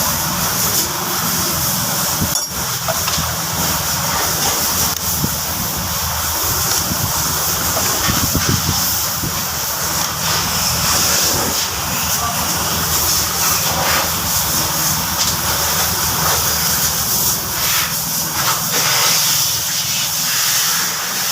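Bajaj Pulsar's single-cylinder engine running steadily with a constant hiss over it. The air filter has just been cleaned, and the mechanic takes the running to be even now, with the misfiring cured.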